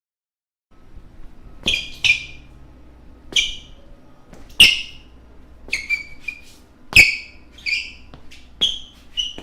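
Basketball shoes squeaking on a court floor: about ten short, sharp squeaks at irregular intervals over a low background rumble, starting after a brief silence.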